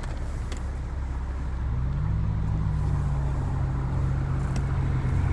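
Car engine and road noise while driving, the engine note rising about a second and a half in as the car speeds up, then holding steady.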